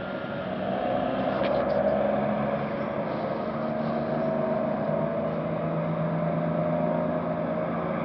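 Steady mechanical drone with a low hum, swelling slightly about a second in.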